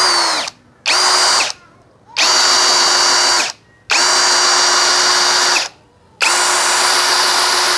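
DCK KDJZ03-13 cordless brushless drill in low gear driving a 4-inch screw into mahogany, run in five trigger pulls with short pauses between them. Each run is a steady motor whine, and the later runs are longer as the screw goes deeper.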